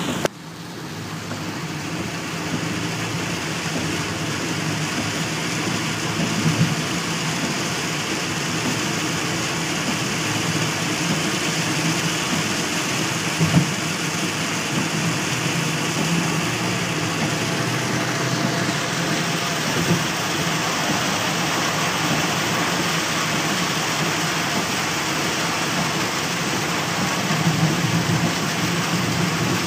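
Heavy rain heard from inside a moving car's cabin: a steady wash of rain on the roof and windshield over the running engine and tyres on the wet road, with a few brief louder knocks.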